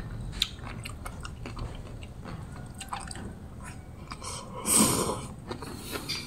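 Close-up eating of crisp sea grapes: small sharp pops and clicks of chewing, with a louder mouth sound about five seconds in as a fresh mouthful is taken from the chopsticks.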